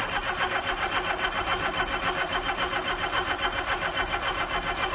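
Volkswagen T25's flat-four petrol engine being cranked on its starter motor with an even, rapid chugging rhythm, trying to fire for the first time after standing twenty years and not yet catching.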